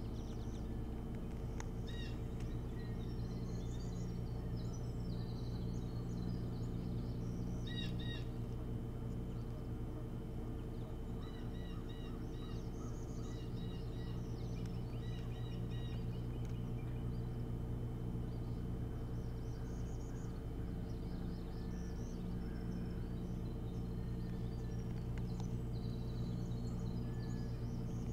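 Birds chirping and calling in short high notes and quick series throughout, over a steady low hum.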